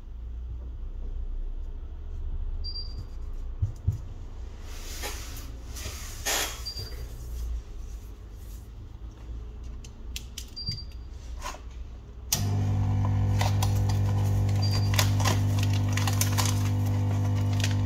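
Small clicks and scrapes of hand tools working on a phone. About 12 s in, a loud, steady electric machine hum switches on suddenly, with a strong low drone and its overtones.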